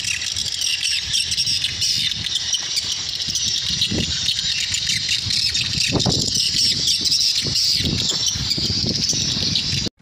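A dense, steady chorus of high-pitched chirping calls, with irregular gusts of wind rumbling on the microphone; it all cuts off suddenly just before the end.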